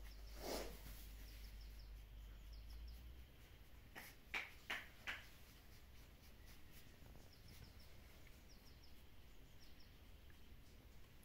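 Near silence with a few faint, short squeaks from a newborn Shiba Inu puppy being handled, three of them in quick succession about four seconds in.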